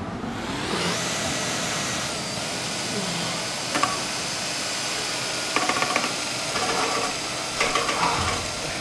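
Electric hand dryer starting up, its whine rising over the first second, then blowing steadily. From about four seconds in, several short vocal sounds come over it.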